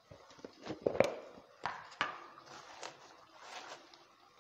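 A few scattered light knocks and clicks of kitchen items being handled off the pot, the sharpest about a second in.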